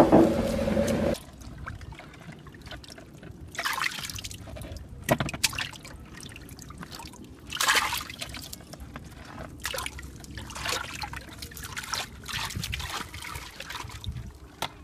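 A boat's engine hum cuts off about a second in. Then hands scoop and splash muddy water in a small dug pit, with trickling and irregular splashes.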